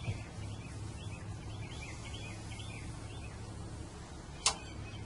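Small birds chirping repeatedly over a steady low hum, with one sharp click about four and a half seconds in.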